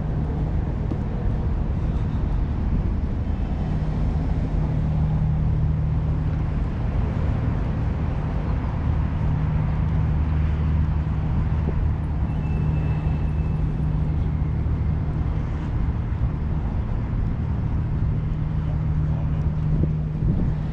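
A large engine running steadily: a constant low drone with an even pitch that does not change.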